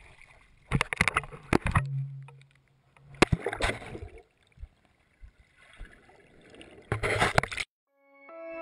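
Handling noise on a GoPro camera: fingers rubbing and knocking against the camera housing in three bursts, with a short low hum about two seconds in.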